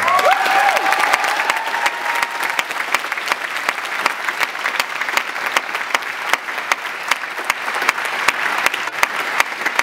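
Audience applauding in an auditorium, a dense patter of many hands clapping, a little louder in the first seconds, with a brief whoop near the start.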